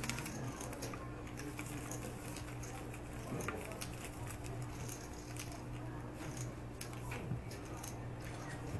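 Poker table ambience: a steady low room hum with scattered light clicks and taps of playing cards and chips on the felt as the dealer gathers the cards.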